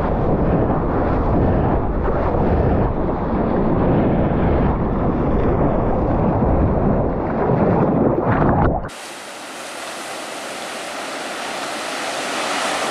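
Water sloshing and rushing against a GoPro held at the surface, heard as a heavy low rumble. About nine seconds in it cuts abruptly to the steady hiss of waves breaking into whitewash, which slowly grows louder.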